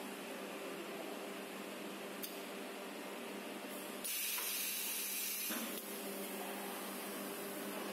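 Pneumatic cylinder of a high-frequency welding machine venting air in a sharp hiss of about a second and a half as the press head lifts off the welded car mat. A steady low hum runs under it, with a click about two seconds in and another just after the hiss stops.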